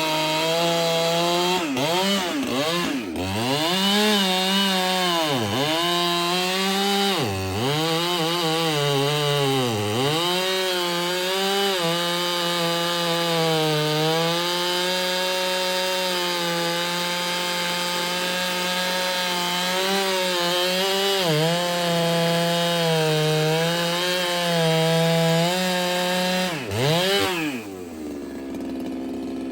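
Ported Husqvarna 395 two-stroke chainsaw cutting wood at high revs. In the first ten seconds the engine pitch dips and recovers several times as it loads down in the cut. It then holds a steady high pitch through a long cut, and near the end drops quickly to idle.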